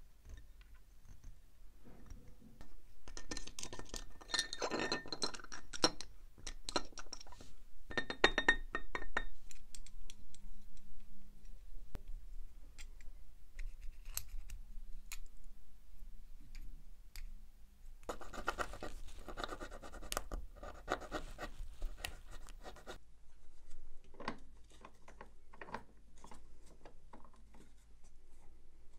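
Close scratching and scraping of small tools on watch parts, in bursts with pauses between, full of sharp little clicks and taps.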